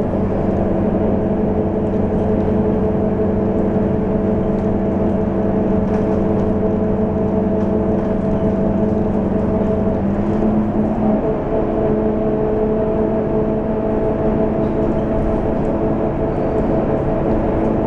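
Scania K230UB bus's rear-mounted five-cylinder diesel engine humming steadily at cruising speed, heard inside the passenger cabin over tyre and road noise. The pitch of the hum shifts slightly about ten seconds in.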